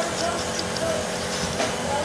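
Car engine idling steadily, with a single sharp click about one and a half seconds in.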